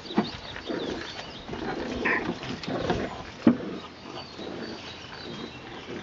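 French bulldog puppies growling and scuffling in play, in several rough bursts, with a short squeak about two seconds in. A sharp tap a little past halfway is the loudest sound.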